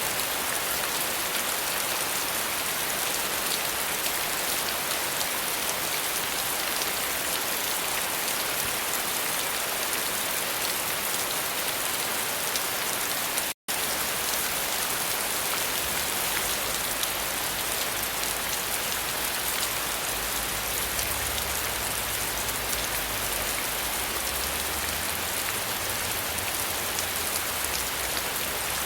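Steady rain falling, an even, dense hiss of drops; the sound cuts out completely for an instant about halfway through.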